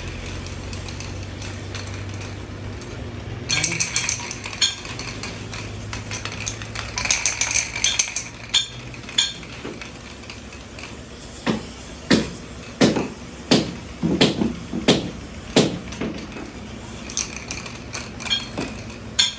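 Metal tools and parts clinking at a motor repair bench, with a steady low hum under the first half. Further on, a run of about seven evenly spaced hammer strikes on metal.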